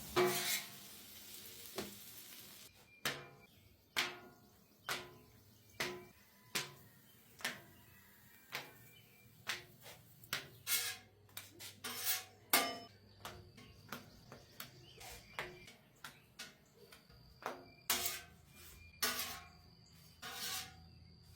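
Metal spatula clanking against a hot cooktop while tossing sliced chicken, with a sizzle for the first couple of seconds and then a string of sharp clanks about once a second.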